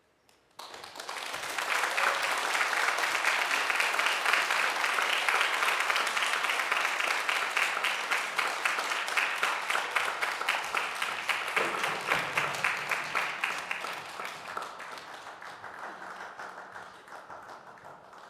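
Audience applauding: the clapping breaks out suddenly about half a second in, stays strong and dense, then thins and fades over the last few seconds.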